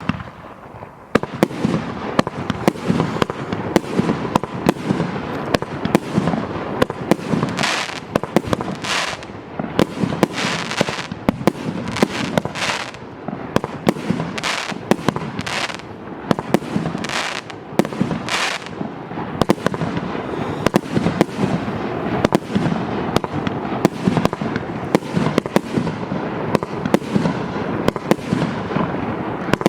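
A 200-shot, 1.2-inch firework cake firing a rapid, continuous barrage of launch thumps and aerial bursts, starting about a second in. Hissing rushes come through the bangs for a stretch in the middle.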